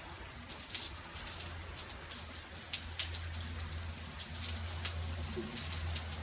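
Rain falling on wet flagstones and gravel, with separate drops ticking irregularly, over a low steady hum.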